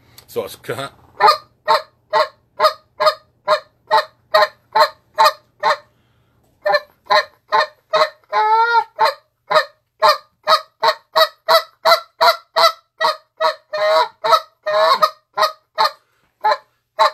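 Short-reed goose call blown in a fast, even run of spit notes (clipped, cluck-like goose notes, about three a second), with a brief pause about six seconds in and one longer, drawn-out note with a bending pitch just after eight seconds.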